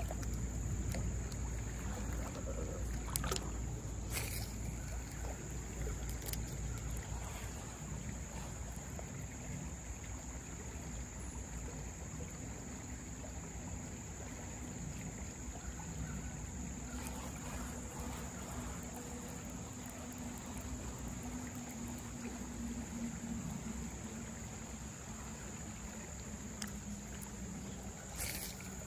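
Shallow creek water running steadily over a gravel riffle, with a steady high insect buzz above it. A few small clicks in the first few seconds.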